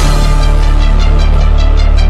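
Bass-boosted hip-hop instrumental with no vocals: a loud, heavy low bass held steady under quick, evenly spaced hi-hat ticks.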